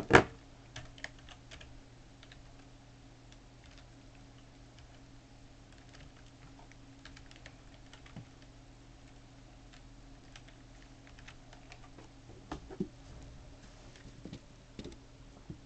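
Computer keyboard being typed on: sparse, irregular key clicks, with a loud thump right at the start and a few louder clicks near the end, over a faint steady hum.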